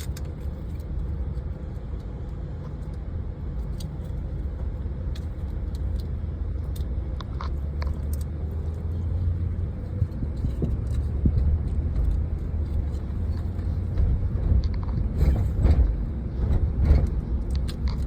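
Steady low rumble of a car ride heard from inside the vehicle, growing louder from about halfway through, with a few light clicks.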